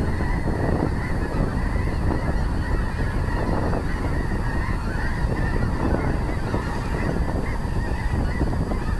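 A flock of geese calling, many overlapping honks and yelps in a steady chatter over low background noise.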